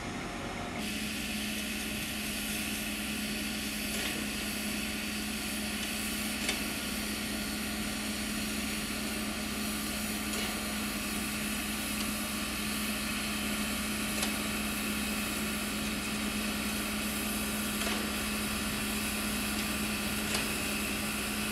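SZ 33-037, a German class 52 2-10-0 steam locomotive, standing at rest under steam: a steady hiss of steam with a constant low hum, starting about a second in.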